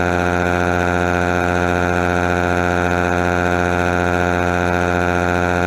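A loud, steady buzzing drone that holds one pitch with many overtones and never changes.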